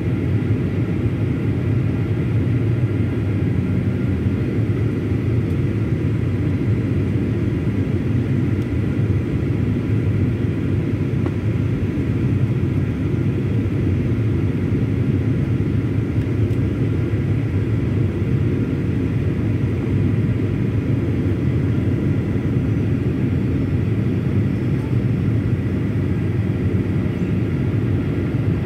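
Steady low rumble of a jet airliner's engines and airflow heard inside the passenger cabin during the descent on approach, with a faint steady whine above it.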